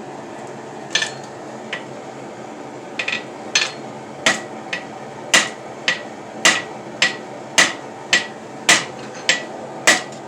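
Hand hammer striking hot iron on an anvil, each blow ringing, about seventeen strikes that settle after a slower start into a steady rhythm of about two a second, alternating heavier and lighter blows. A steady hum runs underneath.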